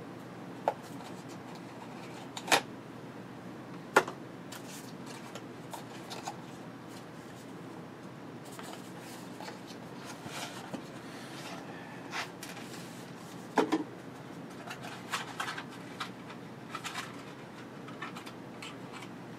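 Hands opening a small cardboard product box and its packaging: a few sharp clicks and taps spread out, with stretches of rustling and scraping of cardboard.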